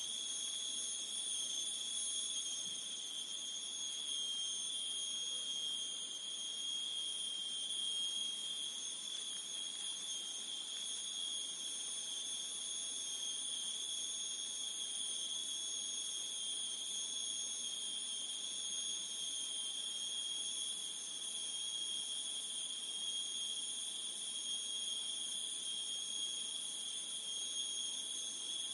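A chorus of forest insects shrilling in a steady, unbroken high-pitched drone, with several tones layered at different pitches over a faint background hiss.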